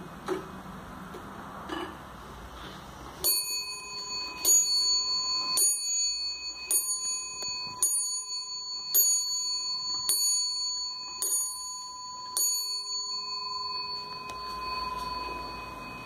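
Wuba rooster wall clock striking the hour: nine strokes, about one every second, each ringing on and fading out after the last. A few light clicks come first, as the minute hand is turned up to the hour.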